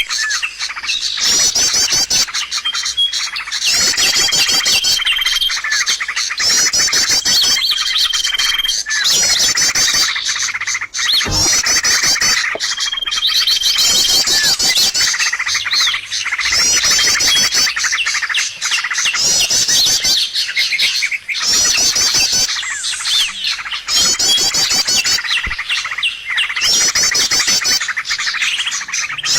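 Bird-lure recording of a small songbird calling: rapid, high chirping phrases repeating every second or two, with short level whistled notes between them.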